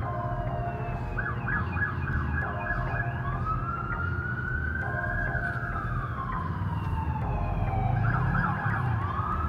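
Emergency-vehicle siren sounding a slow rising-and-falling wail, switching twice to a short burst of rapid yelps, about a second in and again near the end.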